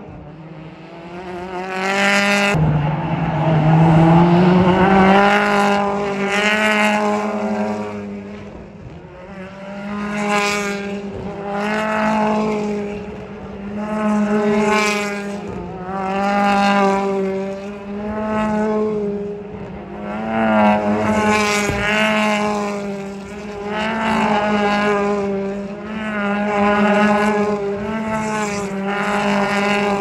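A stream of BTCC touring cars, with turbocharged 2.0-litre four-cylinder engines, passing one after another through a chicane. The engines rev up and down in pitch, swelling in loudness about every two seconds. There is a sharp bang about two seconds in and another after twenty seconds.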